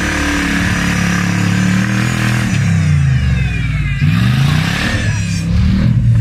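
Off-road 4x4's engine revving hard as it claws through deep mud with its wheels spinning. The revs fall for a second or so from about two and a half seconds in, then climb again.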